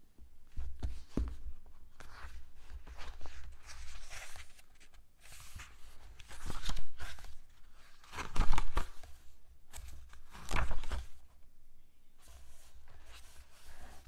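Pages of a paperback vocabulary book being leafed through and turned: a series of papery swishes and rustles, the loudest about eight and a half and ten and a half seconds in, with soft handling knocks as the book is picked up near the start.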